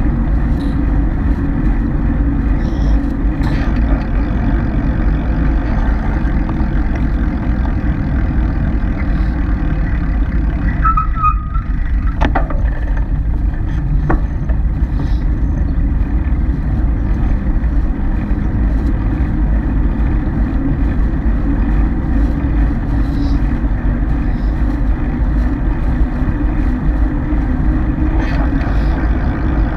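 Steady wind rush and rumble on the microphone of a bike-mounted camera while riding along a paved street, with a brief high-pitched tone about eleven seconds in.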